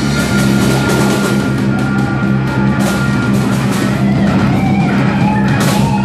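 Live blues-rock trio playing loudly: distorted electric guitar, bass guitar holding sustained low notes, and a drum kit, with a run of cymbal crashes near the end.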